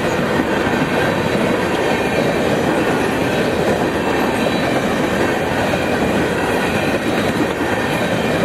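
Empty coal gondolas of a BNSF freight train rolling past at close range: steel wheels on the rails in a steady, even rumble.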